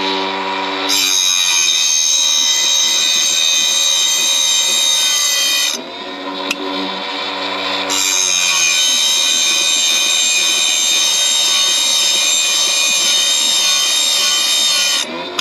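Electric saw blade sharpener's diamond wheel grinding the teeth of a circular saw blade. About a second in, a loud high grinding starts and lasts about five seconds. The motor then hums freely for about two seconds between teeth, and a second grinding pass of about seven seconds follows. Near the end the motor is humming freely again.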